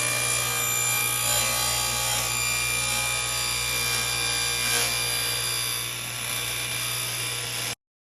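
Power saw running steadily while cutting wood, with a constant motor whine and hum. It cuts off suddenly near the end.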